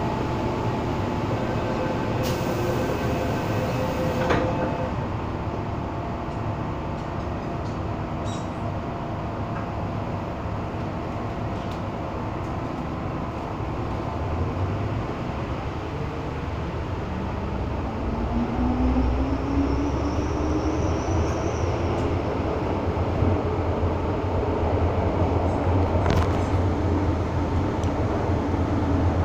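Hong Kong MTR M-Train heard from inside the passenger car: steady rumble and running noise of the train on the track. Past the middle, a motor whine rises in pitch and the running noise grows louder as the train picks up speed.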